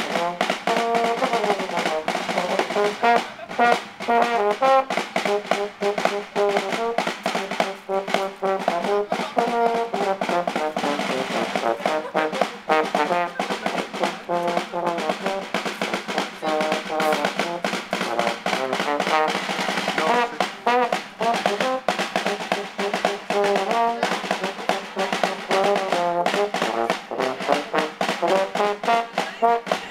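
A euphonium playing a melody with a snare drum beating along in quick, steady strokes.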